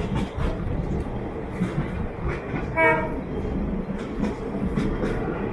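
Passenger train running, heard on board: a steady rumble with wheels clattering and knocking over the rails. A short pitched tone sounds about three seconds in.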